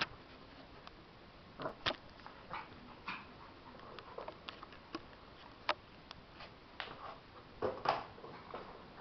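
Cavalier King Charles spaniel puppy playing with a shoe on a tile floor: scattered light clicks and short scuffs, with louder scuffles about two seconds in and again near the end.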